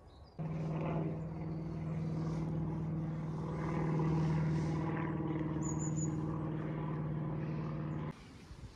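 A steady engine drone holding one low pitch, starting suddenly under a second in and cutting off suddenly about eight seconds in.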